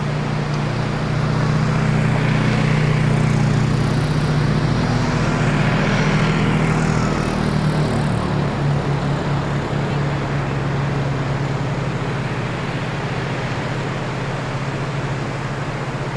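Ocean surf on a pebble beach: a continuous low wash, with a wave building and breaking louder from about a second and a half in before the sound settles back to a steady wash.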